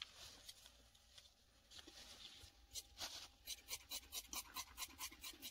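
Fabric scissors cutting stretch fabric, the blades snipping in a quick run of sharp clicks, about five a second, from about three seconds in. Before that, soft scratching and rubbing of fabric and paper on the table.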